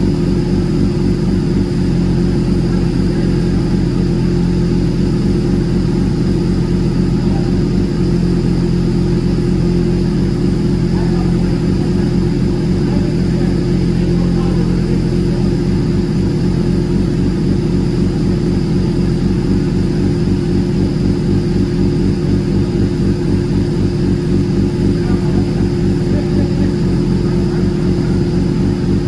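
An engine running steadily at one constant speed, with an even low hum and pulse and no revving.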